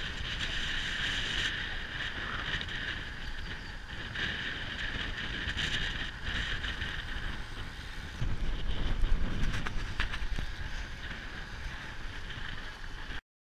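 Wind rushing over the microphone of a camera riding along on a moving road bike, mixed with road rumble. It grows louder for a few seconds about two-thirds of the way through, then cuts off abruptly just before the end.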